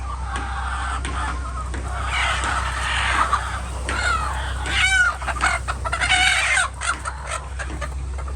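Chickens clucking and calling, many short overlapping calls that grow busier after about two seconds, over a steady low hum.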